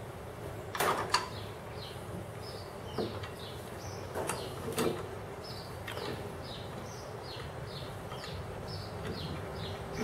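Metal clicks and knocks from an aftermarket disc brake caliper being fitted over the rotor by hand and its pin worked into place. There are two sharp clicks close together about a second in and a few lighter ones later.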